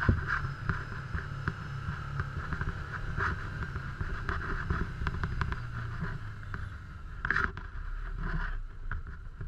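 Side-by-side UTV engine running at low speed over rough ground, with knocks and rattles from the cab and chassis over bumps. A brief louder burst about seven seconds in comes as it reaches the river's edge.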